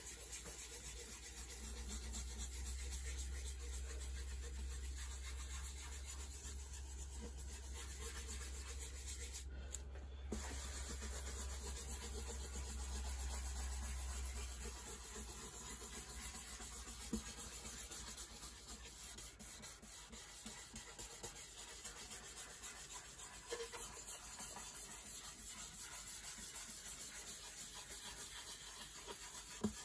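Dye-soaked cloth pad rubbing over a spruce acoustic guitar top, a continuous scrubbing, with a low hum underneath that stops about halfway through.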